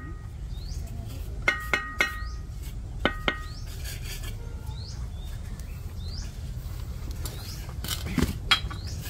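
Steel bricklaying trowel clinking against hollow clay bricks as they are set into a mortar bed: a few sharp ringing taps about a second and a half in, and more about three seconds in. Near the end the trowel scrapes and knocks in a metal basin while scooping mortar.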